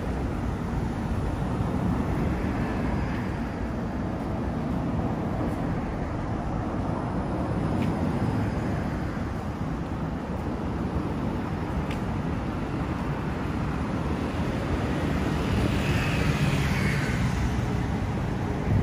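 City road traffic: a steady hum of cars on a multi-lane street, with one vehicle passing a little louder near the end.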